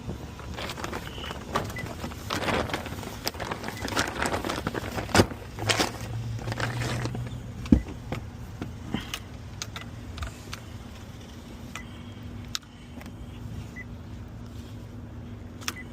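Power wheelchair driving over pavement: a steady low motor hum with rattling and scraping for the first several seconds, then scattered clicks.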